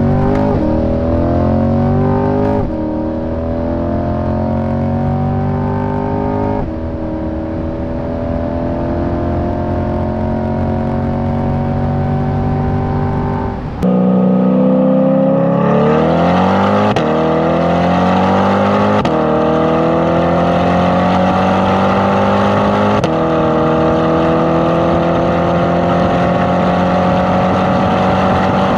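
C8 Corvette V8 with a stainless cat-back exhaust (X-pipe and mufflers) accelerating hard. Its pitch climbs in each gear and drops back at each quick upshift. About halfway through the sound becomes louder and brighter, heard from beside the tailpipes instead of from the cabin.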